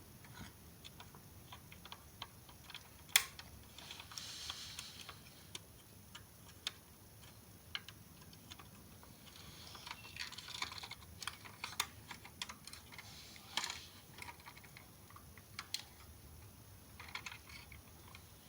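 Scattered small clicks and light rustling of a toy car being handled, its opening parts moved, with one sharper click about three seconds in.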